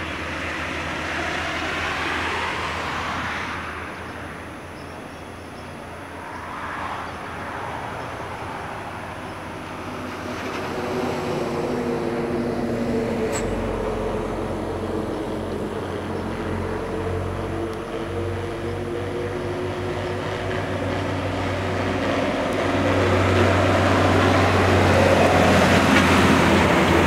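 Diesel intercity coach approaching along the motorway and passing close by at speed. Its engine note and tyre rush grow steadily louder, loudest as it goes past near the end, over the background of other traffic.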